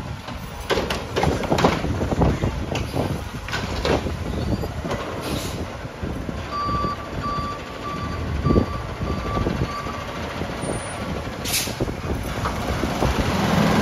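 Heil garbage truck with an automated cart arm: clattering knocks and bangs as a cart is dumped and set back down, over a running diesel engine. About halfway through comes a row of about seven reversing beeps, then a short hiss of air near the end.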